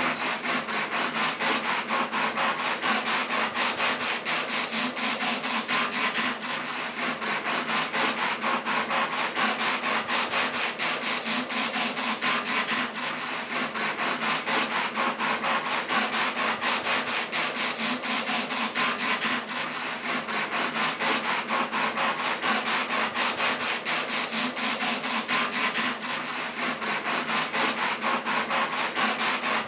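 Braille embosser printing: a rapid, even run of pin strikes that dips briefly about every six and a half seconds.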